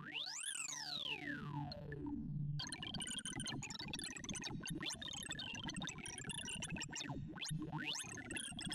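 Sorting-algorithm sonification: synthesized tones whose pitch follows the array values being read and written as Tim Sort works through 2,048 numbers. A glide sweeps up and then slowly back down over the first two and a half seconds, then gives way to a dense jumble of short blips at scattered pitches, with another quick rising sweep near the end.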